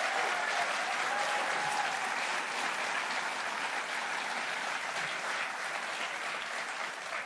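Audience applauding steadily, with a few faint cheers in the first two seconds.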